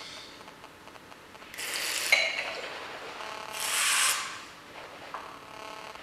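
Wine glass swirled on a glass tabletop, its base grinding and scraping in two bursts of under a second each, with a sharp clink about two seconds in.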